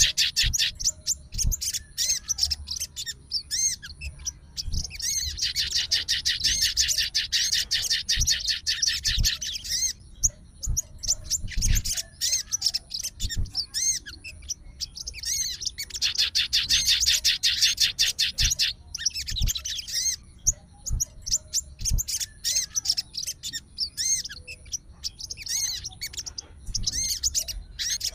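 Crested jay (sogon) calling: long, very fast, high rattling trills lasting several seconds each, three times, with shorter chirps and clicks between.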